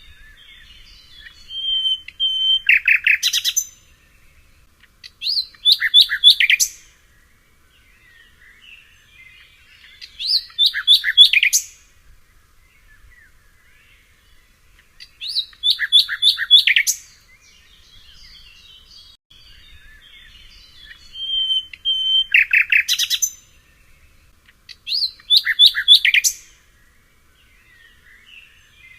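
A songbird singing the same short, fast phrase of rapid notes six times, one every four to five seconds. Some phrases open with a held whistled note, and faint chirping fills the pauses between them.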